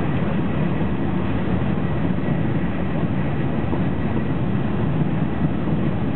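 Cabin noise of a TGV high-speed train running at speed, heard from inside the passenger car: a steady low rumble of wheels on rail and rushing air, with a faint steady high whine.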